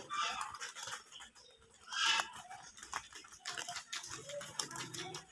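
Rabbits chewing and tearing at green leaves close up, a run of small crunching clicks and leaf rustling, with a louder burst about two seconds in.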